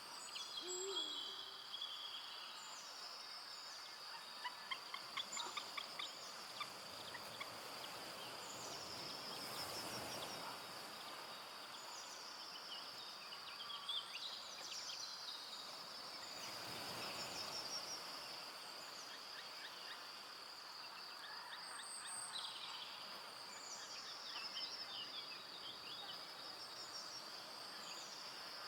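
Forest evening ambience: a steady, high-pitched insect drone, with many short, quick bird chirps and calls over it. Twice, around ten and seventeen seconds in, a soft rush of noise swells and fades.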